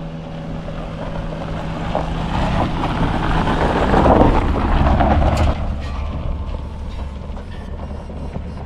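1998 Toyota Starlet's small four-cylinder engine running with tyre noise on a dirt track. A steady low hum at first, then the noise swells to its loudest about four to five seconds in and eases off again.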